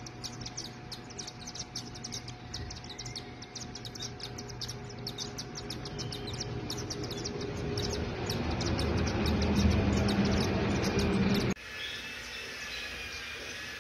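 Rapid, high-pitched chirping, about five short peeps a second, typical of newly hatched cockatiel chicks. A low rushing noise builds under it and cuts off abruptly about eleven and a half seconds in, after which fainter chirps go on.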